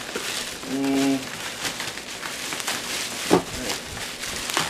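Plastic bubble wrap crinkling and crackling as it is handled and pulled around armor pieces in a cardboard box, with one louder snap about three seconds in.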